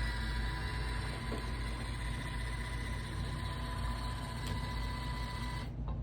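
Roomba robot vacuum running: a steady whir of motor and brushes with a thin high whine. The high hiss cuts off suddenly shortly before the end, leaving a low hum.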